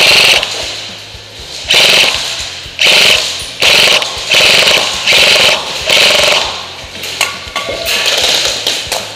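Echo 1 XCR airsoft electric rifle (AEG) firing short full-auto bursts, about seven in a row roughly a second apart, each a quick rattle of shots lasting about half a second.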